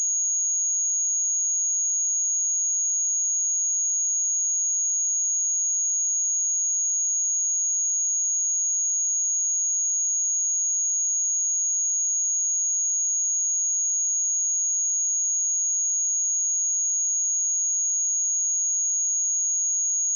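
A steady, unbroken 6653 Hz sine-wave test tone: one pure high-pitched whistle held at constant level.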